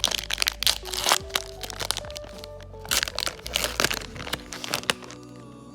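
Trading card pack wrapper being crinkled and torn open, a dense run of sharp crackles for about five seconds, which stop near the end while background music carries on.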